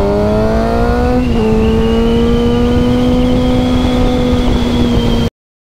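Suzuki GSX-R sportbike engine pulling under acceleration, its note rising steadily. About a second in the pitch dips briefly, then it holds nearly steady, with wind noise underneath. The sound cuts off abruptly near the end.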